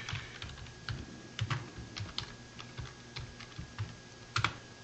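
Typing on a computer keyboard: irregular key clicks, with a sharper, louder click near the end.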